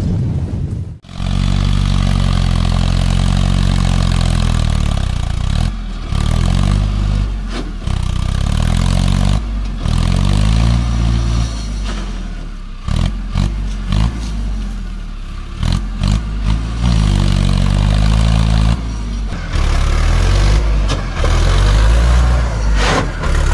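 A low boom that cuts off about a second in. Then a Mahindra Arjun 555 DI tractor's four-cylinder diesel engine runs and revs, its pitch rising and falling again and again as it pulls through soft mud, broken by sudden cuts.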